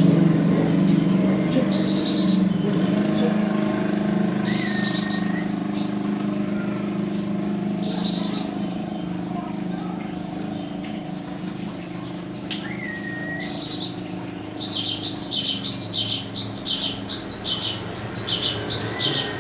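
Caged songbird calling: short high buzzy chirps repeated every two to three seconds, some followed by a brief whistled note, then a fast run of twittering notes near the end. A steady low hum runs underneath.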